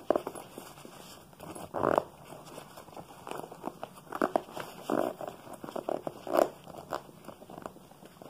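Rustling and scraping of a fabric feeding-tube backpack and its plastic tubing being handled, in irregular short scuffs.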